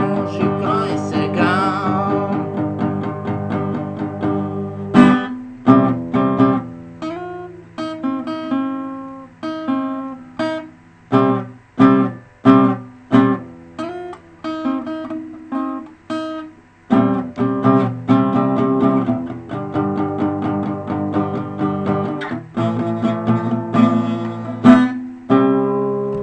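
Acoustic guitar played solo in a blues style: strummed chords mixed with picked single notes, with sharp accented strums and brief pauses between phrases.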